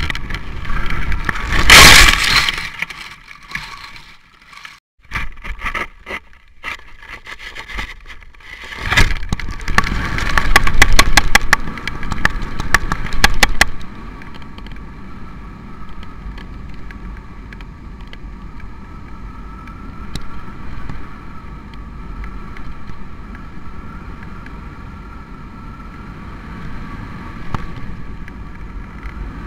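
Wind buffeting the microphone of a camera hung from a kite line, with knocks and rapid rattling clicks from the swinging camera rig in the first half. About halfway through it settles into a steadier, quieter wind noise.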